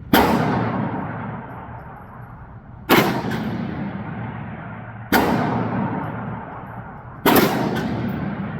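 AR-15 rifle fired four times in slow semi-automatic fire, one shot about every two seconds, each sharp report followed by a long echo dying away.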